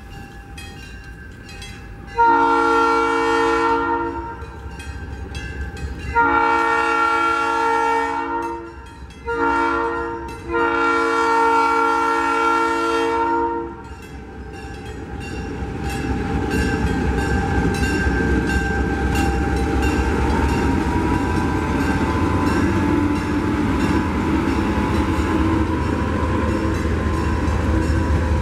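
Southern Pacific 3100, a GE U25B diesel locomotive, sounds its multi-note air horn in the grade-crossing pattern: long, long, short, long. From about halfway through, the locomotive's engine and the train's wheels on the rails grow louder and run steadily as it passes close by with its coaches.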